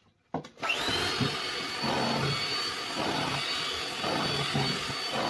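Electric hand mixer switched on about half a second in, its motor whine rising as it spins up and then holding steady while the beaters churn through thick cake batter with a low sound that swells and fades about once a second.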